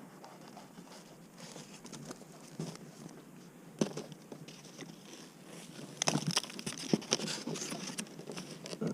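Crinkling and crackling of a stiff wrapping material being handled: faint rustling at first, one sharp click about four seconds in, then a dense run of crackles and clicks over the last three seconds.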